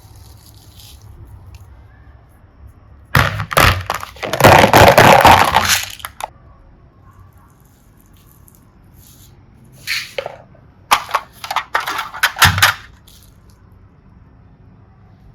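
Mini dinosaur eggs being cracked and crushed: a few sharp cracks about three seconds in, a longer crunching stretch just after, then another quick run of cracks later on.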